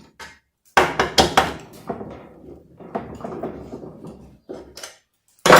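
Irregular knocks and clinks of a wrench and small screws against the metal and plastic parts of a washing machine's mechanism as its 8 mm screws are taken out, with a loud knock near the end.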